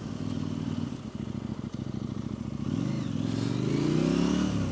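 KTM 890 Duke R's parallel-twin engine under way, running steadily at low revs, then accelerating with a rising pitch from about two and a half seconds in, easing off just before the end.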